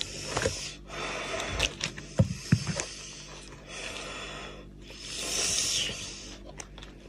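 Close-up eating sounds of a man eating goat's head meat: wet lip smacks and chewing clicks, with hissing slurps and breaths in between. A longer hissing slurp comes about five seconds in.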